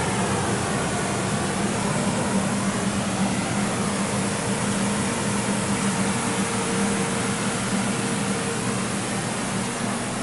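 A steady machine hum under an even hiss, running without a break, with a fainter steady tone joining for a few seconds midway.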